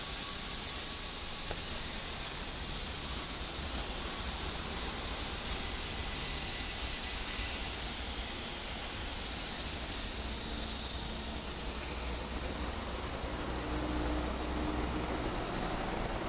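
Steady background noise: a low rumble with a hiss over it, no distinct events.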